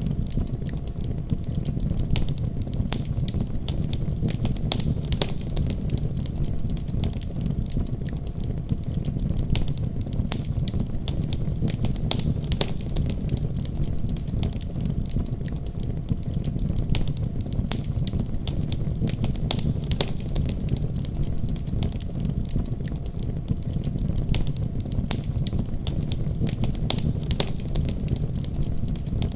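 Fire burning in a fireplace: frequent sharp crackles and pops, scattered irregularly over a steady low rumble of flames.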